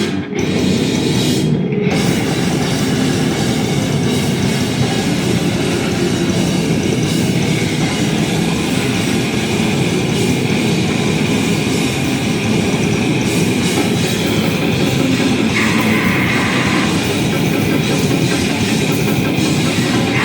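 Loud, heavily distorted live music, a dense unbroken wall of sound with short drop-outs in the top end just at the start.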